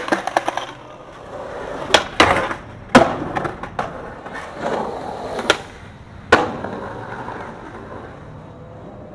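Skateboard sounds: a board clattering on asphalt right after a slam, then several sharp clacks of a board hitting the ground, with wheels rolling on concrete in between.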